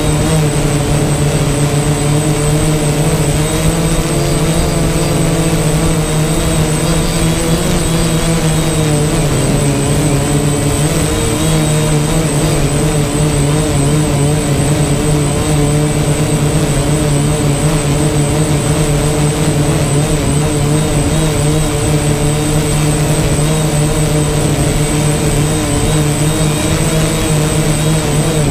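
DJI Phantom quadcopter's motors and propellers buzzing steadily in flight, picked up by the on-board GoPro Hero 4's microphone. The buzz's pitch wavers slightly, with a thin high whine above it.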